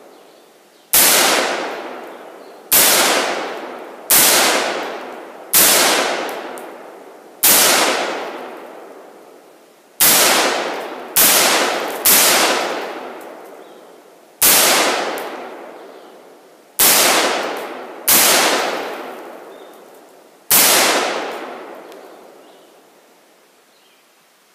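AR-15-style semi-automatic rifle firing about a dozen single shots, spaced unevenly one to two and a half seconds apart. Each shot is loud and sharp and trails off in a long ringing decay.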